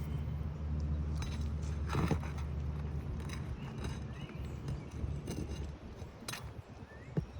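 Steady hum of a running vehicle engine that fades after about five seconds, with scattered scrapes and clicks of a hand tool prying a damaged asphalt shingle loose.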